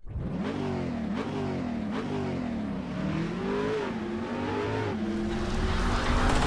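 KTM Duke 125's single-cylinder four-stroke engine revving, its pitch climbing and falling back again and again.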